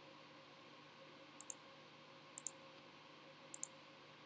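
Computer mouse button clicked three times, each click a quick press-and-release pair, over a faint steady hum.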